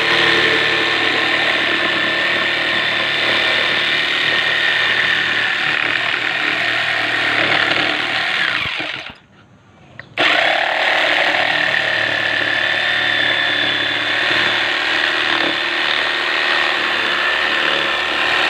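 Hilda 910-watt jigsaw running, its blade cutting a circle through 3/4-inch plywood. The saw runs down and stops about halfway through, is off for about a second, then starts again and runs on.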